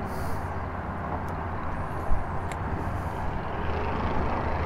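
Steady low outdoor rumble, with a single thump about two seconds in and a sharp click just after.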